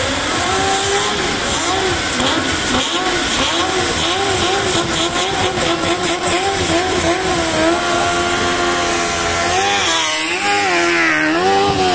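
Formula Student race car revving on the move, its note rising and falling about twice a second, then climbing sharply as it accelerates near the end.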